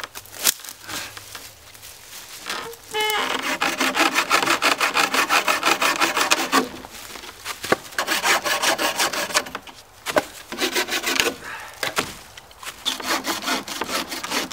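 Hand saw cutting through a dead, dry branch: quick back-and-forth strokes in four bouts, with short pauses between them.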